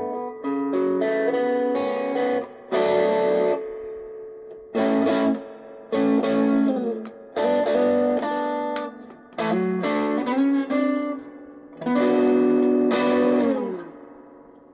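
Fender Stratocaster electric guitar played raw, through a mobile phone's microphone: short phrases of picked chords and notes with brief gaps, some chords sliding, the last chord ringing and fading out near the end.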